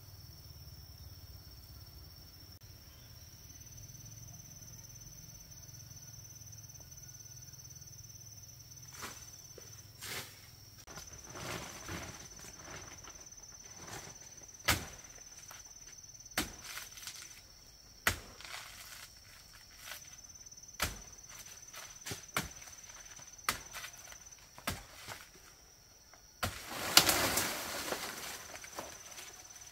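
A steady high insect trill over outdoor ambience, with a low hum that stops about a third of the way in. From then on come sharp knocks and clicks at irregular intervals. Near the end a loud noisy rustle lasts about a second and a half and is the loudest sound.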